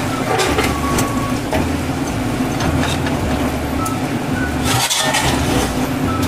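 A steady rushing noise with a low hum throughout, with a few short clinks and scrapes of a metal spoon against a large aluminium pot as meat is spooned onto the rice, the clearest near the start and at about five seconds in.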